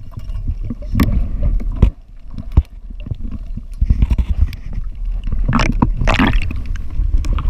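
Muffled underwater water noise picked up by an action camera as a diver swims, a dense low rumble broken by sharp knocks about one, two and two and a half seconds in, and a louder rush of water around six seconds.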